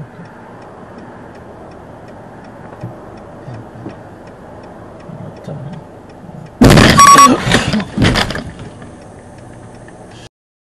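Inside a stopped car, a low steady hum with a light regular ticking; about six and a half seconds in, a sudden very loud crash of noise lasting about a second and a half as an oncoming SUV strikes the car's front in a low-speed collision.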